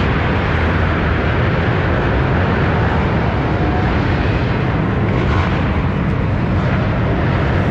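Electric kart tire machine running steadily, spinning a racing tire on its shaft while the tread is rubbed by hand with a pad.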